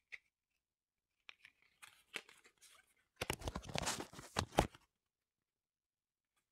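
Game cards being handled: a card slid off the front of a deck and moved to the other hand, making small papery scrapes and clicks, then a louder stretch of card-on-card rubbing and flicking between about three and five seconds in.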